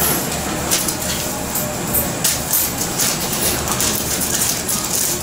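Busy shop noise: a steady low hum under repeated short crinkles of paper as steamed buns are wrapped at the counter.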